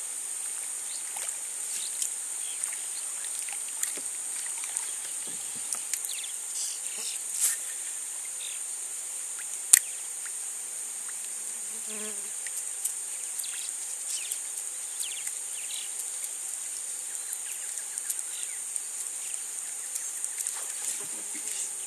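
Steady high-pitched chorus of insects, a continuous drone with no break, with scattered small clicks over it and one sharp click a little under ten seconds in.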